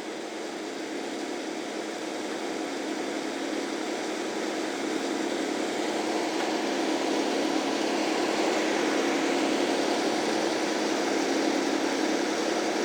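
A large engine on the tree crew's equipment runs steadily with a low hum, growing gradually louder over the first several seconds and then holding.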